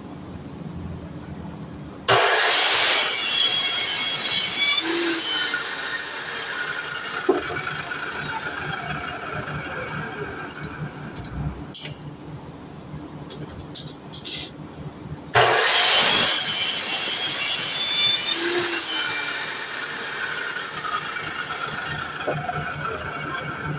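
DeWalt electric miter saw switched on twice, each time starting with a sudden loud whine that slowly fades and falls in pitch as the blade runs down, with a few short knocks in between.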